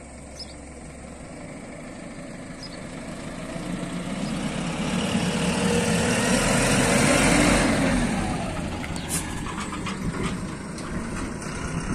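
A loaded Eicher goods truck driving past, its diesel engine growing louder as it approaches, loudest about seven seconds in, then fading as it moves away.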